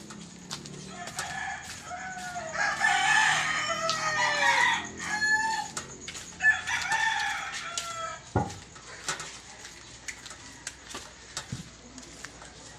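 Several roosters crowing, their calls overlapping for the first few seconds, with another round of crowing just past halfway, then quieter.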